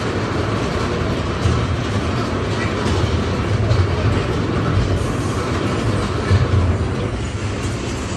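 Amusement-ride car rumbling steadily along its track through a rock tunnel.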